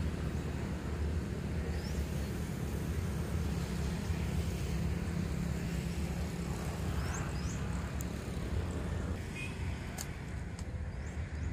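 Steady low outdoor rumble with a few short, high rising chirps scattered through it and a couple of light clicks near the end.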